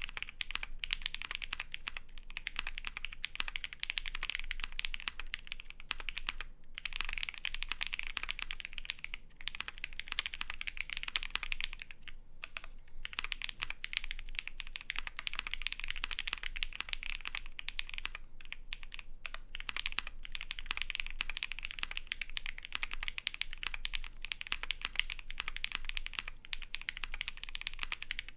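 Fast continuous typing on a Vega custom mechanical keyboard with lubed Holy Panda tactile switches on a polycarbonate plate and GMK keycaps: a dense run of key clacks, with brief pauses about 6, 12 and 18 seconds in.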